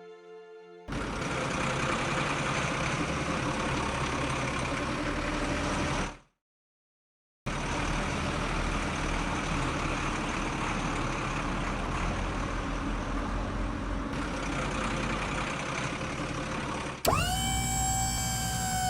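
A machine's engine running steadily, with a gap of about a second of silence some six seconds in. Near the end a loud pitched tone starts suddenly, drops in pitch and then holds steady.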